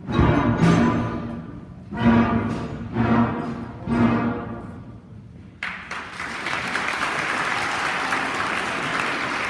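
Middle school concert band playing the closing chords of a piece: four loud accented hits, each dying away, then the audience bursts into applause about five and a half seconds in.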